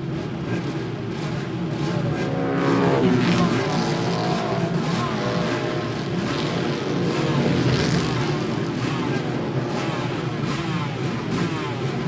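Motorcycle engine running and revving, its pitch rising and falling over and over.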